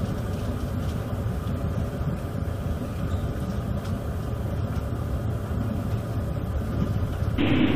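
Wind and heavy sea aboard an oil tanker pitching through storm waves: a steady low rumble and rush of wind and breaking water, with no distinct impacts. Near the end it changes abruptly to a louder, duller rush of storm noise.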